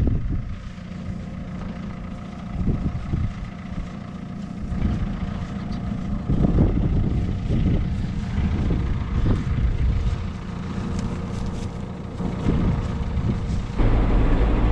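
Tractor engine running steadily, with wind buffeting the microphone. About a second before the end it gives way suddenly to a louder, steady engine drone heard inside a tractor cab.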